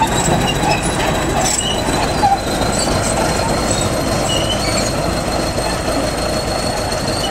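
Crawler bulldozer working at close range: its diesel engine runs steadily while the steel tracks clank and squeal over brick rubble, with a thin, steady high squeal on top.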